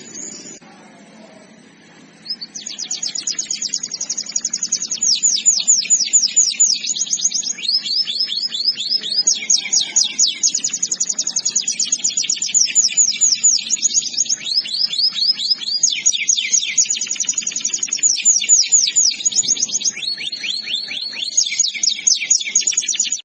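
Canary singing a long, unbroken song of rapid trills that begins about two seconds in, switching from one trill pattern to another every second or two.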